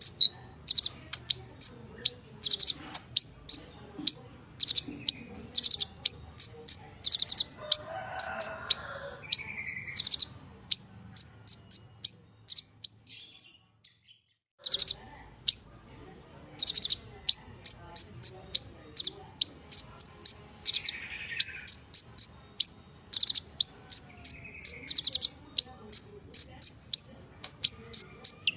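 Purple-throated sunbird (kolibri ninja) singing a rapid, unbroken run of sharp, high chips and ticks, several a second, with a short pause about halfway through.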